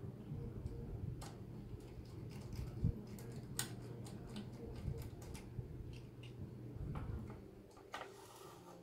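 Irregular light clicks and taps of small plastic and metal parts being handled as a fan is taken off a graphics card's cooler, with one heavier knock about three seconds in and a brief scrape near the end, over a steady low hum.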